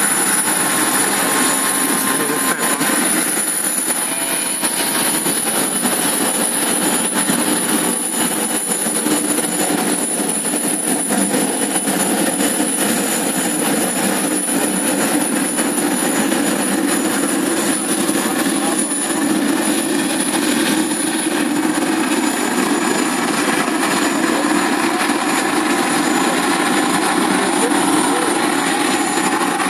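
Aircraft engine noise: a steady, loud drone with a thin, high, steady whine above it.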